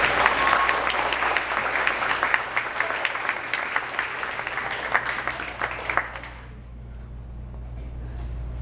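Audience applauding, a dense patter of hand claps that dies away about six seconds in, leaving a low steady hum.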